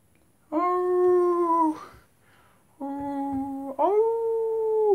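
Three long howls one after another, each held on a nearly steady pitch and falling away at its end: the first about half a second in, a lower one about three seconds in, and a higher one straight after it.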